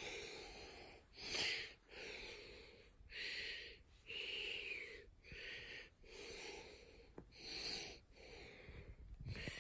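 Long-haired cat purring while a hand strokes it: a raspy sound that runs in alternating breaths, about one a second, each broken by a short pause.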